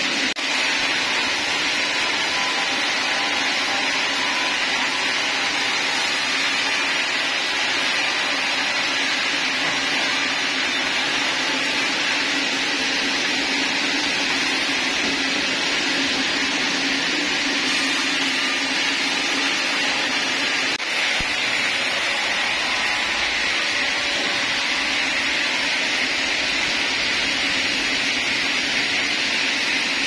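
Sawmill's vertical band-saw headrig running: a loud, steady, even machine noise with no breaks.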